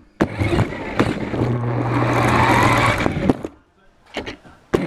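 A toy RC car running, with the rattling rumble of its wheels and motor, sharp knocks, and a steady low hum for about a second and a half in the middle. The noise drops away suddenly a little past halfway, leaving only a few clicks.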